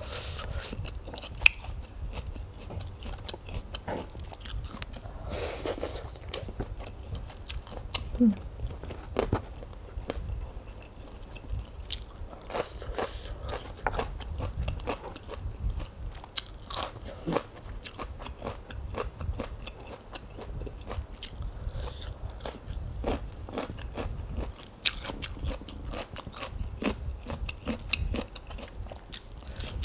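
Close-miked eating sounds: chewing with frequent short, crisp crunches and mouth clicks as a person eats handfuls of spicy rice-noodle salad with crisp pieces.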